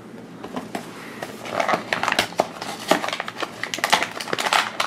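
A small cardboard blind box being opened by hand: crackling, rustling and small clicks of the card flaps, thickening from about a second and a half in.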